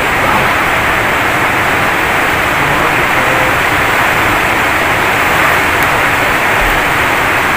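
A steady, even hiss with no breaks.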